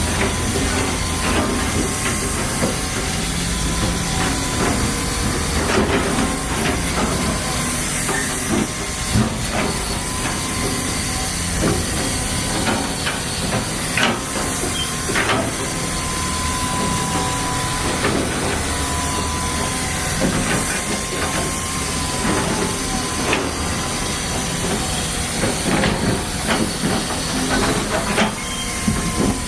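Digger machinery working: a steady engine rumble under a constant hiss, with a faint wavering whine and occasional sharp knocks.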